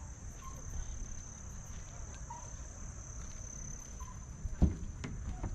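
Crickets trilling steadily and high-pitched over a low outdoor rumble, with a few faint short chirps. There is one sharp knock about four and a half seconds in.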